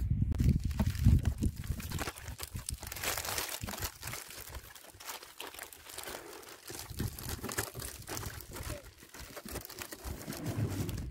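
Thin clear plastic bag crinkling and rustling as it is shaken open and pressed into a cardboard box as a liner, with a low rumble in the first two seconds.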